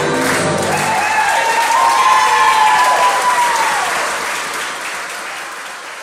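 Music ends about a second in and the audience applauds and cheers, with rising-and-falling whoops over the clapping; the sound fades out toward the end.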